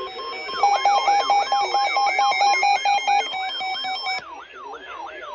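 Electronic emergency alert tone: a siren-like wail sweeping up and down about twice a second over rapid beeps at about four a second. The beeps cut off about four seconds in, leaving the wail.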